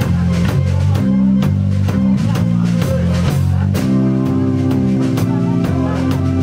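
Live blues-rock trio playing: electric guitar, bass guitar and drum kit, with a steady drum beat under a busy bass line. About four seconds in the guitar settles into sustained held notes.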